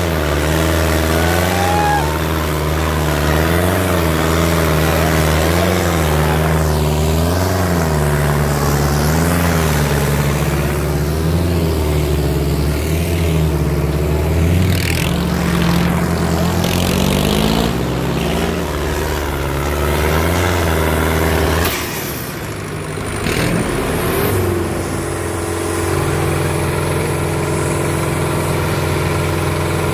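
Sonalika 750 tractor's diesel engine running hard under load, its pitch surging up and down in a regular rhythm about every second and a half. About 22 seconds in it drops off, then settles to a steady idle near the end.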